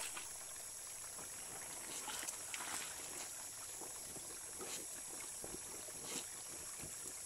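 Shallow stream running over stones, with occasional splashes and sloshing as soapy clothes are lifted and wrung out over a washbasin standing in the water. A steady high-pitched whine sits above it all.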